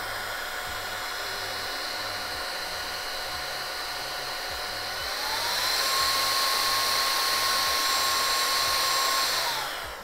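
OPOLAR cordless mini vacuum-blower running in suction mode: a steady high motor whine with a rush of air. About five seconds in the motor steps up to a higher speed, its pitch rising and the sound growing louder, then it winds down near the end.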